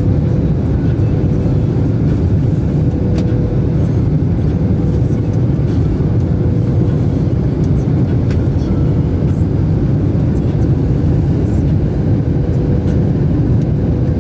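Jet airliner cabin noise: a steady, loud rumble of engines and airflow, with a constant mid-pitched hum running through it.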